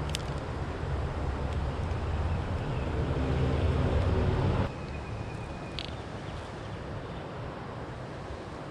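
Steady rush of creek water, with a sudden drop in level a little past halfway where it becomes quieter, followed briefly by a thin high steady tone.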